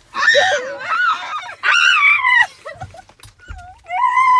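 A girl screaming in three high-pitched bursts, the last one held and carrying on at the end.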